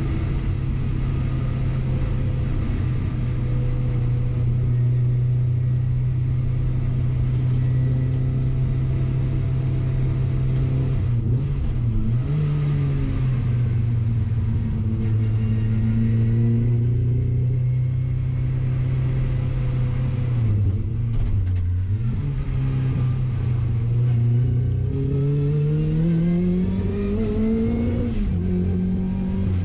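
Car engine running under load at steady revs, dipping briefly twice. Near the end it revs up steeply, then drops back.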